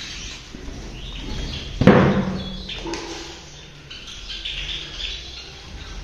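White Java sparrows chirping in their aviary colony, with one loud thump about two seconds in.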